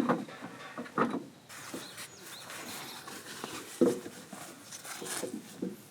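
Camping gear being handled and set in place: a few sharp knocks and clatters with rustling between.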